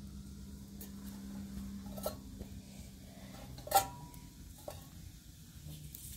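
A few light metal clinks as a metal teapot and kettle are handled at a wood fire. The loudest comes about halfway through and rings briefly.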